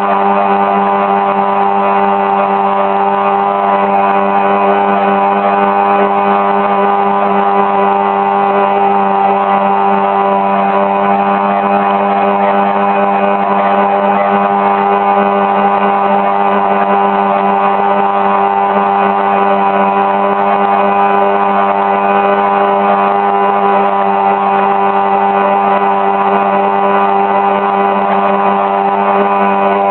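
Riva motor launch's motor running at a steady, unchanging speed, heard from on board.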